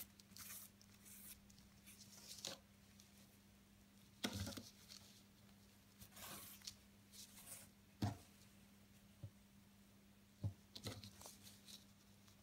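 Faint rustling and scratching of a needle and silk ribbon being drawn through burlap held in an embroidery hoop, with a few soft knocks, about four, eight and ten seconds in, over a low steady hum.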